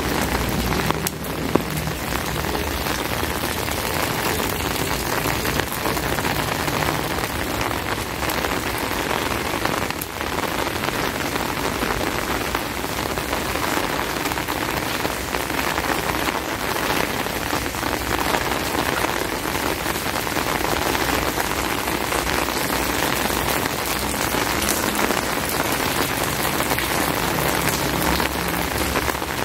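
Heavy rain falling steadily, a dense even patter.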